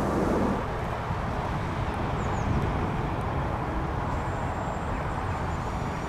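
Steady outdoor background rumble, even and unbroken, with a faint high chirp about two seconds in.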